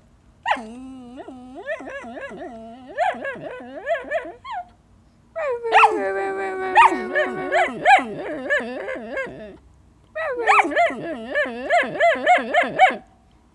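Young mixed-breed puppy 'talking' in a long run of whines and yowls, in three bouts separated by short pauses, with the pitch wavering up and down; the puppy is demanding a game of fetch.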